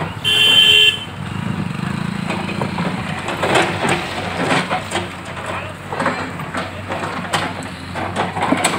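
JCB 3DX backhoe loader's diesel engine running under load as the backhoe bucket digs through broken road surface, with repeated clanks and crunches of asphalt and rubble. A brief loud high tone sounds just after the start.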